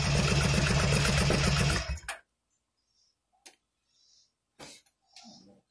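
Motorcycle engine idling with a steady, rhythmic beat through exhaust pipes with their baffle inserts back in, then shut off about two seconds in. A few small clicks and knocks follow.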